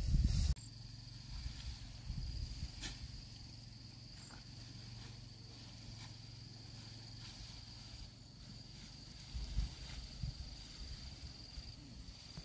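Quiet rural ambience: a steady high-pitched insect call, most likely a cricket or cicada, with a few soft rustles and light taps.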